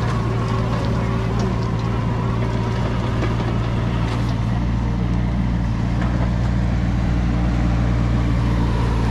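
Kubota U25 mini excavator's diesel engine running steadily while the machine travels on its rubber tracks across pavement. It gets slightly louder near the end as it comes closer.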